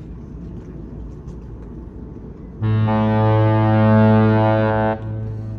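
A cruise ship's horn gives one long, deep blast a few seconds in, signalling departure. It stops abruptly about two seconds later, and a fainter tone lingers after it.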